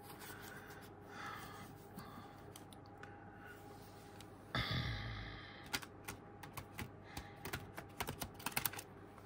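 A deck of cards being shuffled by hand: a rustle about halfway through, then a quick run of sharp clicks and flicks as the cards are split and slapped together.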